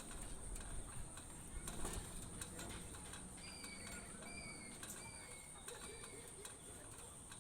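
Wild birds calling in the open: a bird gives four short, slightly falling whistled notes in a row about halfway through, over a steady high-pitched buzz.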